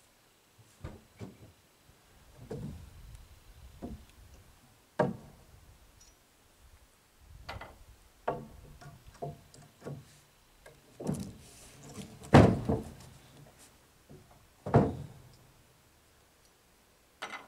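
Scattered, irregular knocks and thuds of wooden boards being handled and shifted on a pickup's tailgate, the loudest about twelve seconds in and again near fifteen seconds.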